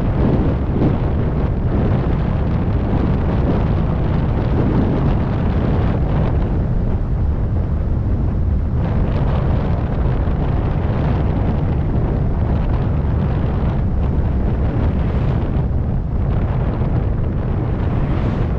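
2004 Ford Focus under way: a steady, loud engine and road rumble, with wind rumbling on the microphone.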